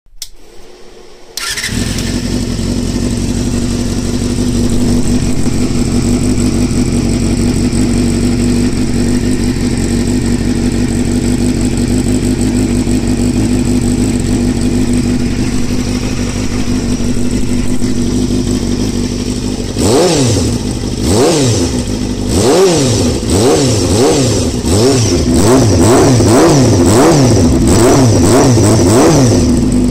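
Honda CBR250RR exhaust through an aftermarket Daishin header and a universal slip-on silencer. The engine starts about a second and a half in and idles steadily. From about two-thirds of the way through, the throttle is blipped about ten times, each rev rising sharply and falling back.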